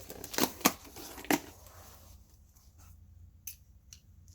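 A package being opened by hand: three sharp crackles in the first second and a half, then quieter handling with a couple of faint clicks near the end.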